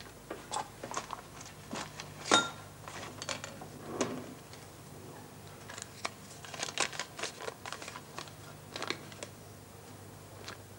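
Light handling sounds of a relay baton and the small paper clue slip taken from it: scattered clicks and knocks, the sharpest a little over two seconds in, then soft paper rustling as the slip is unfolded. A faint steady hum runs underneath.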